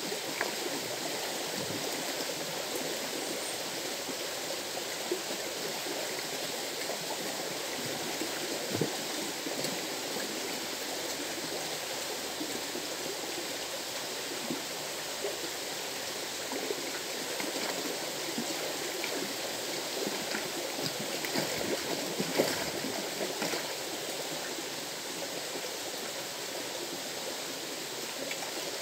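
River water flowing: a steady rushing of the current, with a few brief knocks, about a third of the way in and again about three-quarters through.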